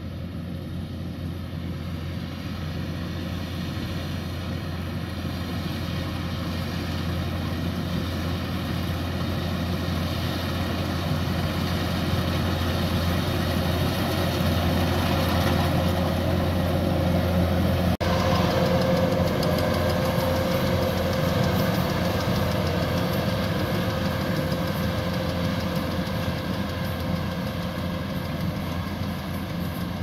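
Kubota combine harvester running steadily with a low engine hum while cutting rice. It grows louder as it approaches, then eases off a little as it moves past.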